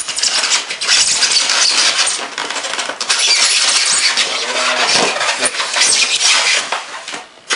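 Packaging rustling and crinkling close to the microphone as a boxed item is unpacked, loud and nearly continuous with a short lull about three seconds in.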